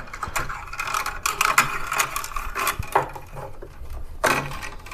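Two 14-2 plastic-sheathed electrical cables being pulled through the knockout of a blue plastic electrical box: a run of scraping and rustling with scattered small clicks as the sheathing and wires rub against the plastic.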